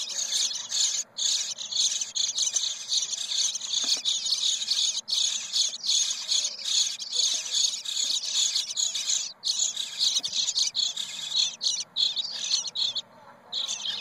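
Bluebird nestlings begging in a chorus: a continuous high-pitched hissing chatter that drops out about a second before the end, with one short last burst. It is the food-begging call of young in the nest, given with gaping mouths as a parent arrives to feed.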